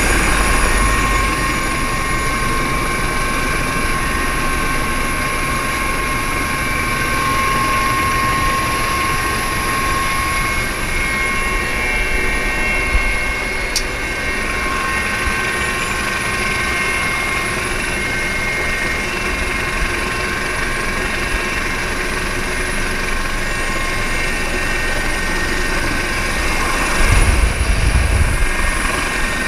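Helicopter running in flight, heard from the open side door of its cabin: a steady rotor and engine rumble with a whine of several steady tones over it. Near the end the low rumble swells in gusts.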